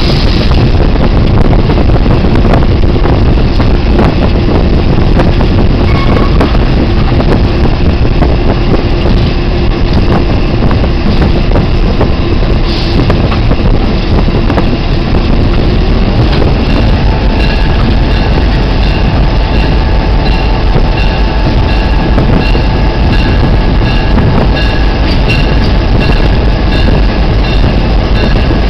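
Diesel locomotive running along the track, heard from its front platform: a loud, steady mix of engine and wheel noise with light rail clicks. The engine's tone shifts about halfway through, a lower steady note giving way to higher ones.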